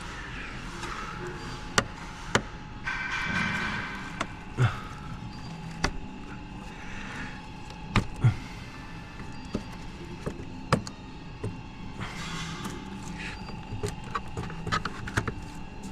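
Plastic engine-bay covers and clips being worked loose by hand: scattered sharp clicks and knocks, with short stretches of scraping and rustling twice.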